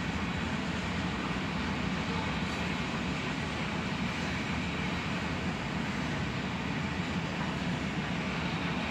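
Freight train of covered hopper cars rolling past: a steady, even rumble of steel wheels on rail.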